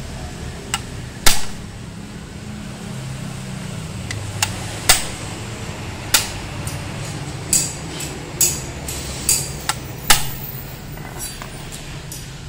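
Sharp metal clicks and clinks, about ten at irregular intervals with the loudest about a second in, as small steel engine parts are handled and knocked against a cast-alloy motorcycle clutch cover.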